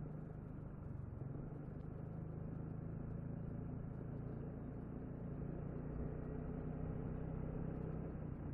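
Piaggio MP3 LT 500 three-wheeled scooter's single-cylinder engine running at a steady cruise while riding: a low, even hum with road and wind noise underneath.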